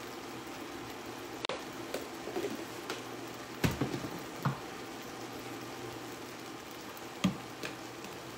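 Chopped vegetables cooking in oil and butter in a large pot, sizzling softly and steadily. A few short knocks and clunks of kitchen utensils and containers sound over it, the loudest about three and a half seconds in.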